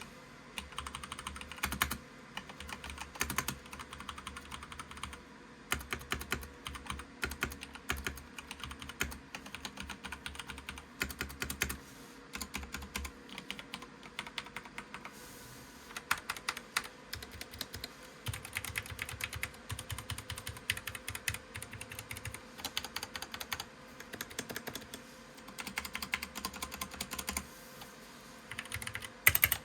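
Typing on a DREVO Seer PRO Mini mechanical keyboard with Gateron Brown switches: rapid runs of key clicks and clacks, broken by a few short pauses.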